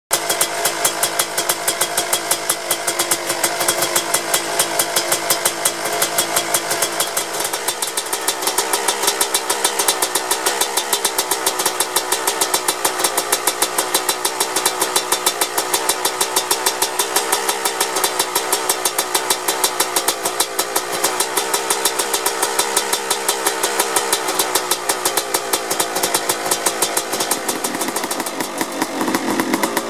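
Suzuki RM 250's single-cylinder two-stroke engine, breathing through an FMF Fatty expansion chamber and Shorty silencer, running cold at a steady idle with a fast, even crackle of firing pulses. The pitch rises briefly near the end.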